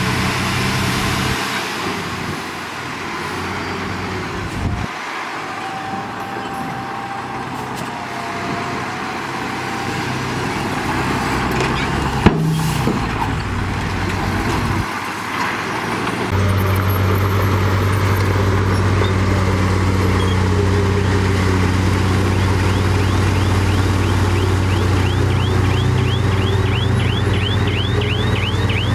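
Heavy diesel earthmoving machinery, bulldozer and dump trucks, running at work, with the sound changing abruptly several times. A single sharp click comes about twelve seconds in. From about halfway, a steadier, louder low engine note sets in, and rapid repeating high squeaks run through the last few seconds.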